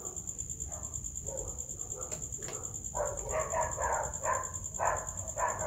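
A dog whining in a string of short, high whimpers, about three a second, starting about halfway through. A steady high-pitched tone runs underneath, with a few light clicks in the first half.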